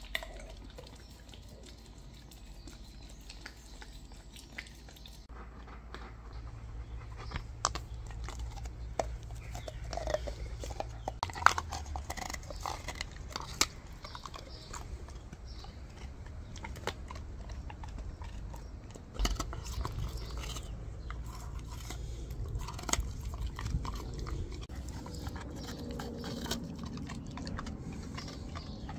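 Bernese mountain dog biting and chewing a frozen yogurt and peanut butter treat, with many irregular sharp crunches as the frozen treat breaks. The crunching starts a few seconds in.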